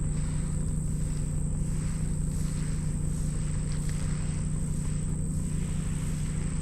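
A vehicle engine running steadily with a constant low hum, with no change in pitch or load.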